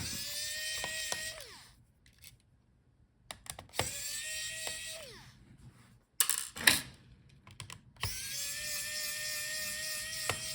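Small electric screwdriver whining in three runs of about two seconds each while it backs out the laptop's heatsink screws, with short pauses between runs. A sharp clatter falls between the second and third runs.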